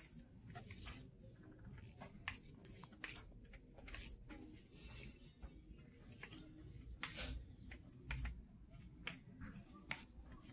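Faint handling noise: scattered, irregular clicks and rustles as things are handled close to the microphone, over a low background hum.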